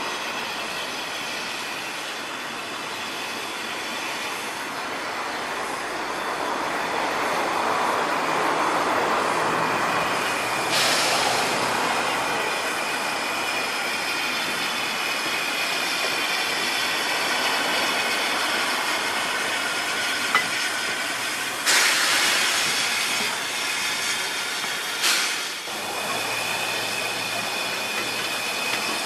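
Narrow-gauge double Fairlie steam locomotive moving slowly with a steady hiss of steam escaping from the open cylinder drain cocks beneath it. Three sharper bursts of hiss come about a third of the way in, about three-quarters of the way in, and shortly after.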